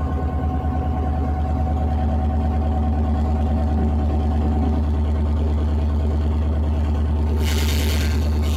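Class 66 diesel-electric locomotive's EMD two-stroke V12 engine running steadily, heard from inside the cab, with a brief hiss near the end.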